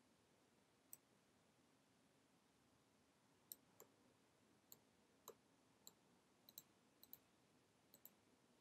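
Faint clicks of a computer mouse and keyboard, about a dozen sharp clicks, several in quick pairs, over a low steady hiss.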